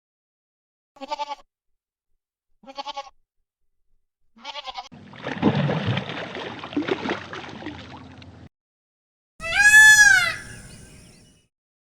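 Animal bleating: three short quavering bleats a second or two apart, then a few seconds of rough noise, and a loud, high, arching call near the end.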